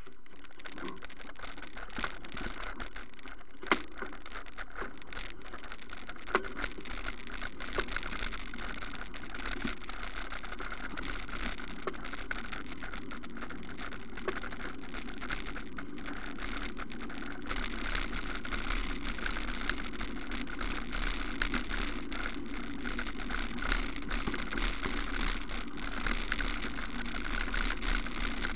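Wheels rolling over a gravel and dirt track: a steady crunching, crackling noise from a low-mounted camera, with two sharp knocks from bumps a few seconds in. The noise grows a little louder past the middle.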